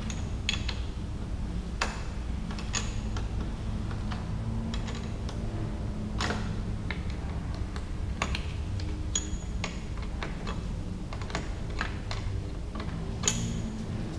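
Irregular light metallic clicks and knocks from hand tools and parts being worked in a car's engine bay, over a steady low hum.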